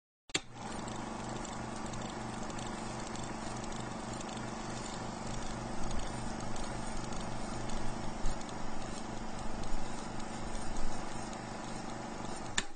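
Steady rhythmic mechanical clatter over a low hum, starting and stopping abruptly, with a few louder knocks in the second half.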